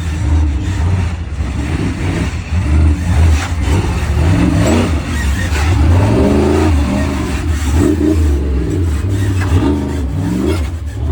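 A 4x4 truck's engine revving hard and repeatedly, its pitch rising and falling with each blip of the throttle over a steady low drone.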